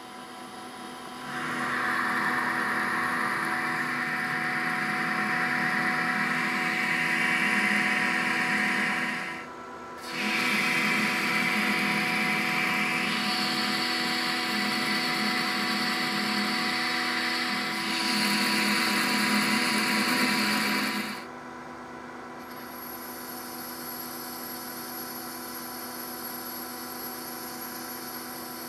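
Metal lathe boring a 303 stainless steel part. The spindle drive runs with a steady hum of several tones, and the boring bar's cut adds a loud, gritty cutting noise over it. The cutting drops out briefly about a third of the way in, then stops for good about three quarters through, and the lathe spins on alone.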